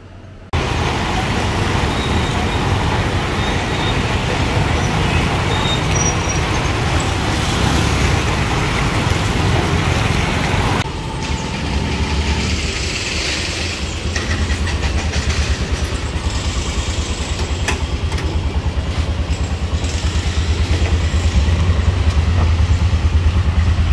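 A loud, even rushing noise, then, after a cut about eleven seconds in, a three-wheeled auto-rickshaw's engine running with a low rapid pulsing, heard from on board as it drives.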